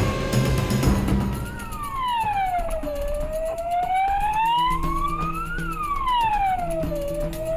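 Patrol car siren wailing: the pitch drops quickly, then climbs slowly back up, in cycles of about four seconds, repeating twice.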